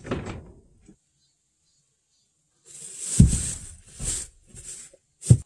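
Plastic sheeting rustling and crinkling in several short bursts as a plastic basin is pushed across it and set down, with dull thumps; the loudest thump comes about three seconds in and another just before the end.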